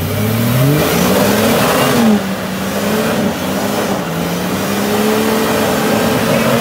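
A lifted Jeep's engine revving hard as it climbs a rock ledge off-road. Its pitch climbs in the first second, dips briefly about two seconds in, then holds high.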